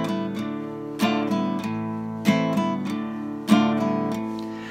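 Acoustic guitar strummed in a slow, even pattern, four chords about a second and a quarter apart, each left to ring and fade: the lead-in to a sung refrain.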